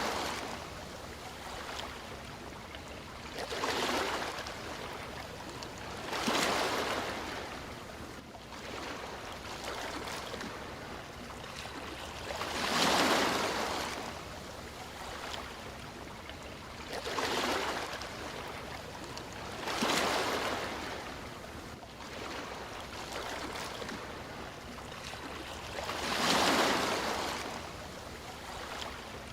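Sea waves breaking and washing in, each one a hiss of surf that swells and fades. They come every three to seven seconds over a steady low rumble.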